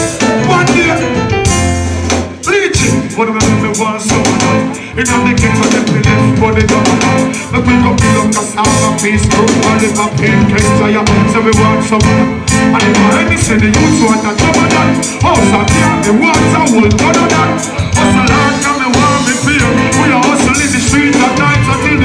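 Live reggae band playing through a club PA: drum kit, bass guitar and keyboards, with a male vocalist singing into a microphone over a steady beat.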